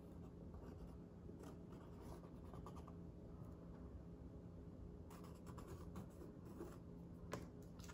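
Faint scratching of a marker tip dragged along the inside edge of a plastic headlight template onto a golf cart's plastic front cowl, in short strokes with pauses between them, over a low steady hum.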